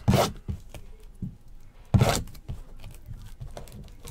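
The wrapping on a trading-card hobby box being slit with a knife and torn open: two loud rips about two seconds apart, with smaller scratching and crinkling between.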